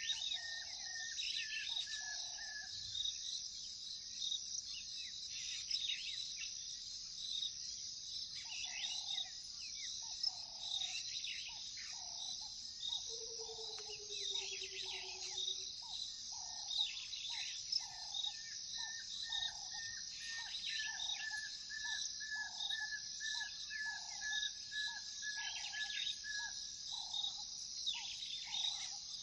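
Night-time African savanna soundscape: a steady, high-pitched chorus of crickets with bird calls over it. A lower note repeats about one and a half times a second through most of it, a fast high trill runs at the start and again in the second half, and a short falling trill comes near the middle.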